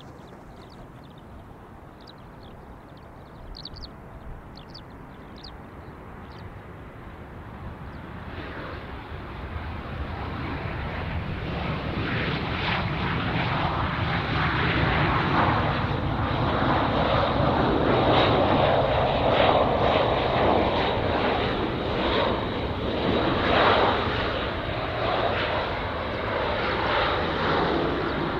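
Jet airliner on landing approach passing close by: its engine noise, with a steady high whine, builds from about eight seconds in to a peak around two-thirds of the way through, then eases slightly. A few short bird chirps sound before the jet noise builds.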